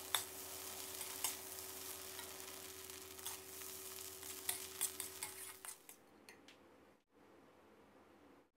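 Fried rice sizzling faintly in a metal pan as a metal spatula stirs and tosses it, with scattered clicks of the spatula against the pan. The sizzle stops about six seconds in, leaving near silence.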